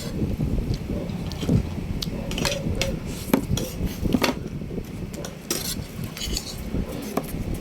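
Spoon and fork clinking and scraping on a plate in a series of irregular short clicks, as the last bites of rice are scooped up.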